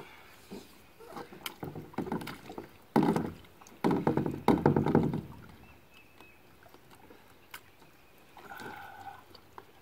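Thumps, knocks and scrapes of a person's knees, feet and hands shifting on the hollow polyethylene deck of a Lifetime Tamarack Angler 100 sit-on-top kayak as he works up from a crouch to standing. The loudest scraping and thumping comes about three to five seconds in, with smaller knocks before it.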